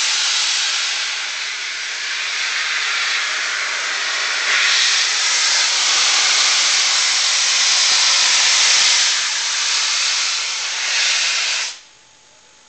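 Steam hissing loudly and steadily from the cylinder drain cocks of Peppercorn A1 Pacific 60163 Tornado as it starts away. The hiss cuts off suddenly near the end.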